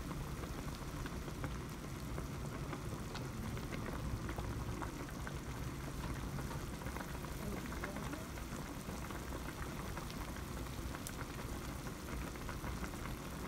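Hot pot broth boiling hard in a wide pot: a steady bubbling with faint small pops.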